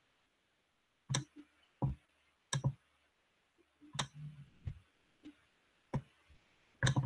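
Computer mouse clicking, about eight sharp clicks at irregular intervals, picked up by the computer's microphone.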